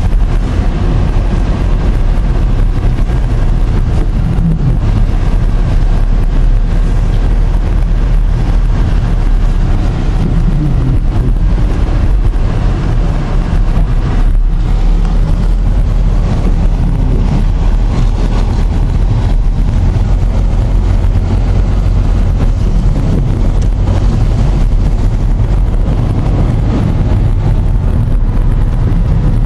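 Strong storm wind buffeting the microphone, loud and steady throughout.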